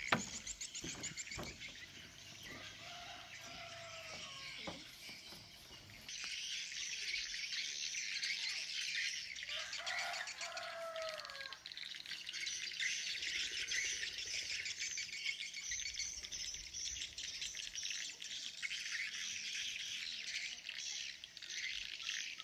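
Many small birds chirping in a dense, steady high twitter that grows fuller about six seconds in, with a few lower calls in between.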